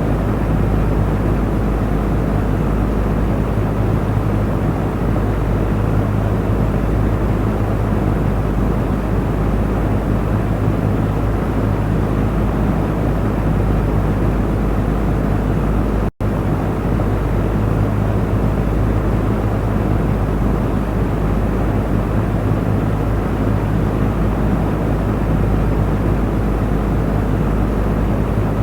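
Electric cooling fan running steadily: an even rush of air over a low motor hum. There is a split-second gap in the sound about halfway through.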